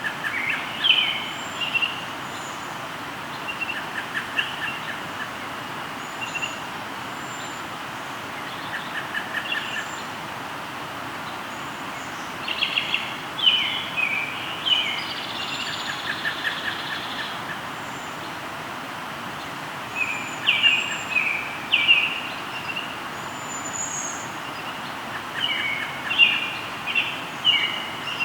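Songbirds singing over the steady rush of a river. Bursts of quick chirping phrases come every few seconds, with short trills in between and faint high thin whistles.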